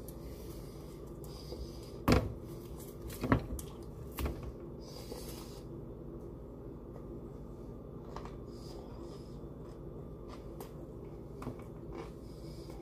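Three sharp knocks about a second apart, from hands moving at the table right by the camera, over a steady low hum in the room.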